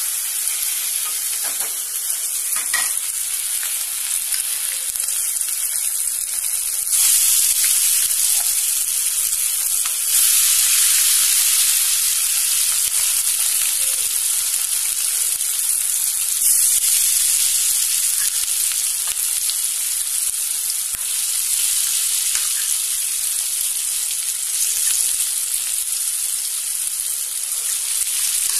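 Marinated chicken pieces with an egg-and-cornflour coating sizzling in hot oil in an aluminium wok. A loud, steady crackling hiss that gets louder in steps around seven and ten seconds in.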